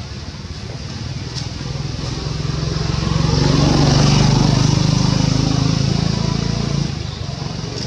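A motor vehicle passing. Its engine noise builds over the first few seconds, is loudest in the middle, and drops off suddenly near the end.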